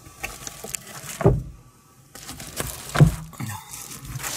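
Reflective bubble-foil windshield sunshade being pulled down from the windshield: light rustling and small clicks of the foil, with two dull thumps, about a second in and about three seconds in.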